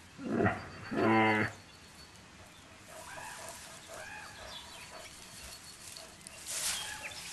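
Brown bear giving a short grunt, then a low drawn-out moaning call about a second in. Small birds chirp softly in the forest afterwards.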